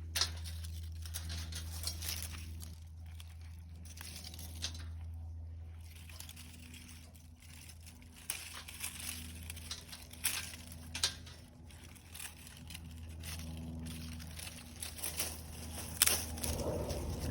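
Wood campfire crackling, with scattered sharp pops and rustling, over a steady low hum.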